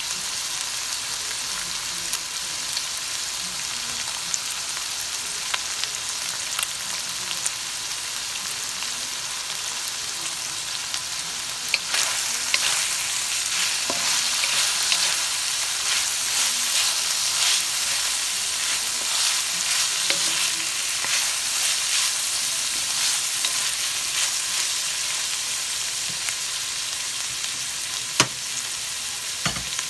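Beef and asparagus sizzling in a wok with a steady frying hiss. About a third of the way in, a wooden spatula starts stirring and scraping through the food, making the sizzle louder and busier for several seconds before it settles again. There is a single sharp tap near the end.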